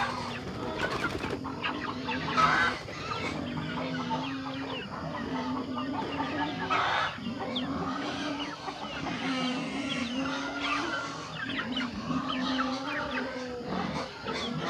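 A small flock of two-month-old crossbreed Asil chickens clucking and chirping, with many short, quick calls, over a low steady hum that breaks off every second or so.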